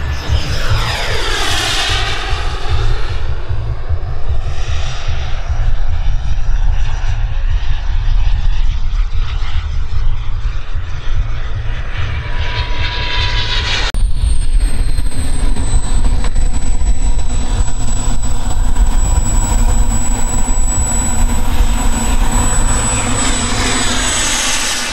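Xicoy 132 model jet turbine on an RC F-35 making low passes: a high turbine whine over a low rumble. The pitch sweeps down as the jet passes about two seconds in. The sound changes abruptly near fourteen seconds into a steady high whine, and the pitch climbs again near the end as the jet approaches.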